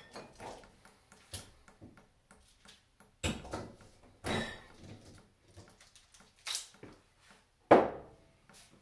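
Handling noises from beer-bottling gear: about five separate knocks and clunks, a few seconds apart. The last one, near the end, is the loudest and has a short ring.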